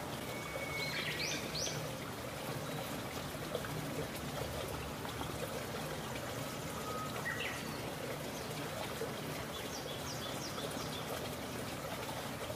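Steady outdoor background hiss with a few short bird chirps: one about a second in, another around seven seconds, and a quick run of chirps near ten seconds.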